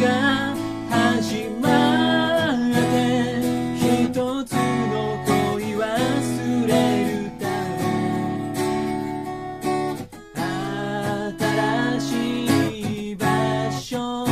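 A song played on a strummed acoustic guitar, with a voice singing the melody over it.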